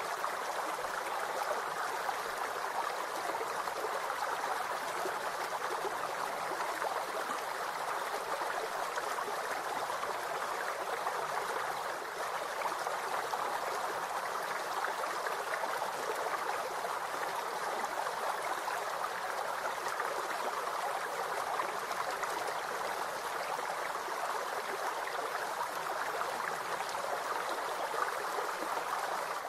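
Steady rushing noise like a flowing stream, even in level throughout.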